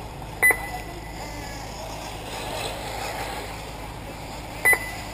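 Two short, loud electronic beeps about four seconds apart, typical of an RC race's timing and lap-counting system, over a steady background hum.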